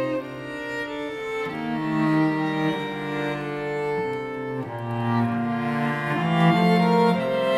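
A string ensemble playing slow, held chords, violins over a lower bowed line, the chord shifting about once a second.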